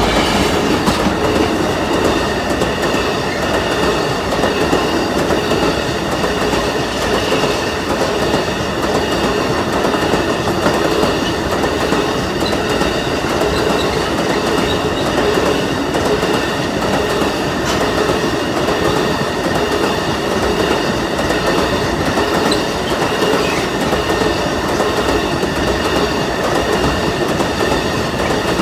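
Long engineering freight train of hopper wagons, hauled by a Class 66 diesel locomotive, rolling steadily past at close range: a continuous rumble with wheels clattering over the rails.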